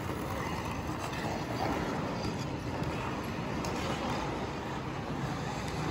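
Indoor ice rink ambience: a steady, even rumbling hiss with no distinct single event.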